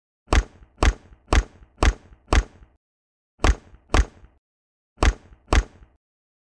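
Sharp plastic clicks of toy building bricks snapping into place, about two a second: a run of five, then two, then two more, with silence between.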